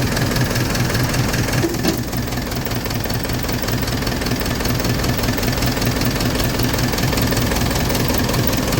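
Isuzu 4BC2 four-cylinder diesel engine running steadily at idle, with a diesel knock.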